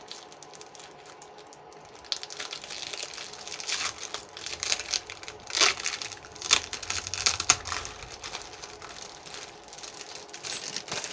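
Clear plastic packaging sleeve crinkling and crackling as hands handle it and the stiff foil paper sheets inside. It starts about two seconds in, with a few sharper, louder crackles in the middle.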